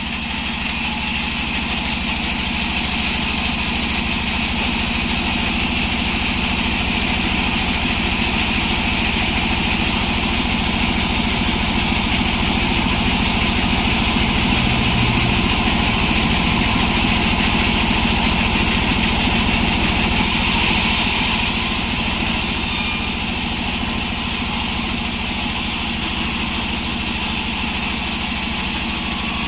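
Sawmill engine running steadily. It grows slightly louder about a second in and eases back a little at about 21 s.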